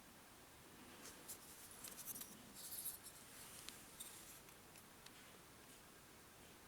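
Faint rustling and scratching of thin paper being handled, with a few light clicks, loudest in the middle and fading out.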